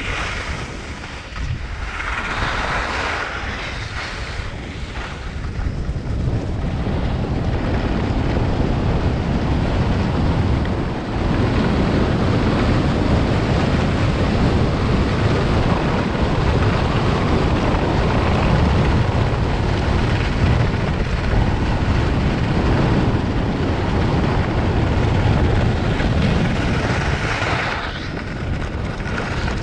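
Wind rushing over the microphone of a skier's body-worn camera, with the hiss of skis sliding on groomed snow. It grows louder about six seconds in and eases near the end.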